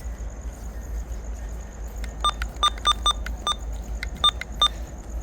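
A run of about eight short, high electronic beeps at one fixed pitch, unevenly spaced over about two and a half seconds, over a steady low rumble.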